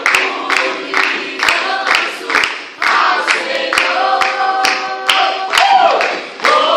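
A group of people singing a Portuguese Christian worship song together, with a sharp steady beat about twice a second under the voices.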